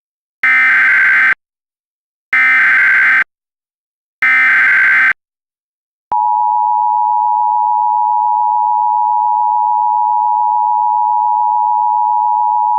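Emergency Alert System activation: three short bursts of SAME header data, each just under a second with a short gap between. Then, about six seconds in, the steady two-tone EAS attention signal begins and holds.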